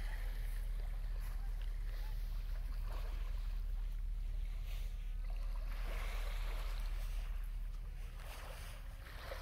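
Wind buffeting a phone microphone: a steady low rumble, with a brief patch of hiss about six seconds in.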